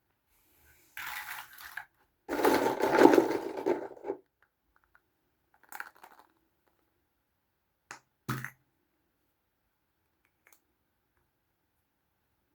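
Close-up crinkling and scraping of small toy packaging being handled and opened, in two bursts, the second louder and longer, followed by a few short sharp clicks.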